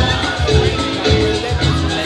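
Loud dance music with a steady, heavy bass beat.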